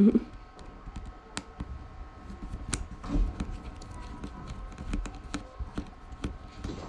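Small, irregular clicks and ticks of a precision screwdriver and fingers working the tiny screws and plastic parts inside an opened tablet, after a short low thump at the start.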